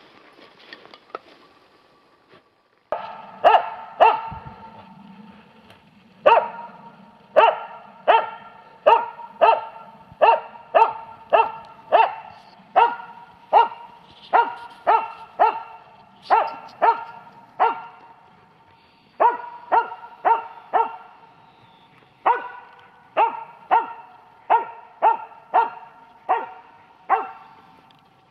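Karelo-Finnish laika barking steadily, about one to two barks a second, up into a tree: the laika's bay that holds treed game. The barks start about three seconds in and go on with only two short pauses.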